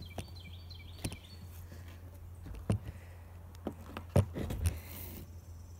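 Camera being handled and moved into position: a few irregular knocks and thumps, the loudest about four seconds in, over a steady low hum.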